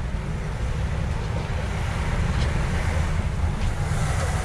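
Wind buffeting the camera microphone with a steady low rumble, over the general noise of street traffic.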